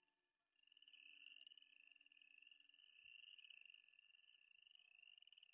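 Near silence with a faint chorus of high, pulsing trills, each about a second long, repeating one after another.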